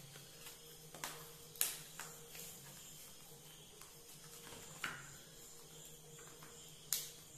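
Faint handling of a banana-leaf parcel being folded and tied with thread: soft rustles and a few sharp crackling clicks of the leaf, the loudest about one and a half seconds in and near the end, over a faint steady hum.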